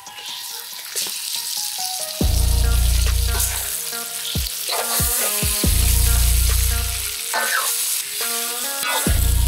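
Raw chicken pieces sizzling loudly as they go into a hot wok of frying onions and spice paste, stirred with a metal ladle. Background music with deep bass notes comes in a few times underneath.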